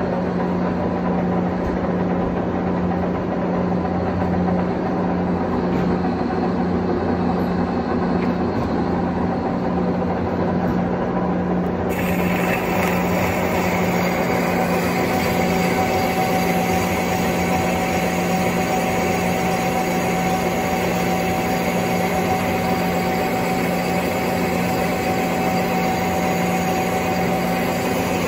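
1943 American Pacemaker 20x48 engine lathe running steadily with a low hum, turning a metal flange. About twelve seconds in a brighter, hissier layer joins as the tool cuts the flange and throws chips, and a thin steady whine follows a few seconds later.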